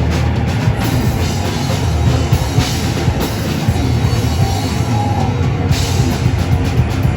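Live rock band playing loudly, with a full drum kit driving under heavy bass and guitars.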